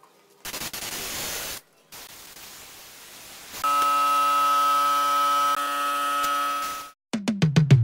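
A short burst of hiss, then a steady electronic buzzing tone held for about three seconds that cuts off suddenly. Electronic music with drum-machine kicks starts right at the end.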